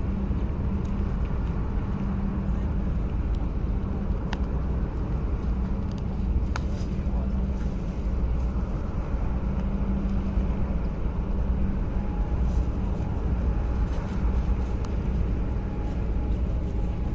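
Steady low rumble with a hum from the container ship Ever Greet's machinery as the ship moves past at close range.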